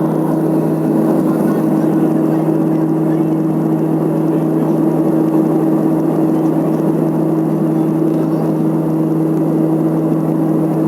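Let L-410 turboprop's engines and propellers running at steady power: a constant loud drone with a strong low hum and its overtone held at one pitch.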